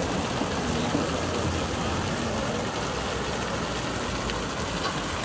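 Fountain water falling from tall spouts into basins, a steady splashing rush.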